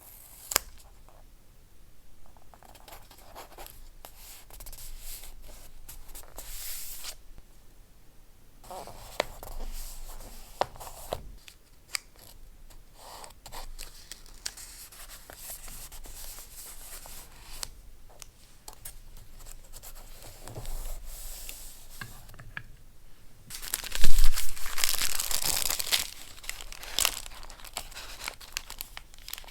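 Close-up paper sounds from collage work: paper being handled, rustled and torn, with scattered small clicks and taps. The loudest stretch of tearing or crinkling comes about 24 seconds in and lasts a few seconds.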